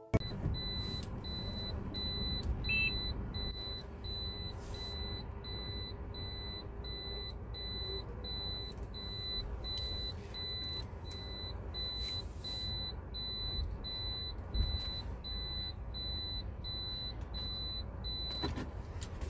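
A car's high-pitched warning chime beeping steadily about every half second over the low hum of the running engine in the cabin, stopping shortly before the end.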